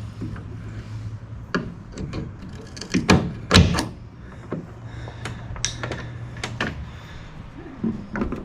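Clunks and knocks of a pickup truck's tailgate being worked loose at one side, with the loudest cluster about three to four seconds in.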